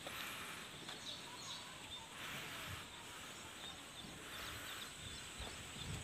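Faint rural outdoor ambience: a soft hiss of air and leaves that swells and fades several times, with a few faint bird chirps and a thin, steady high whine.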